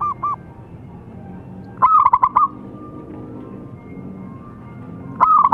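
Zebra dove cooing: its staccato call, a quick run of about five ringing coos, about two seconds in. The tail of a call falls at the very start and another begins near the end.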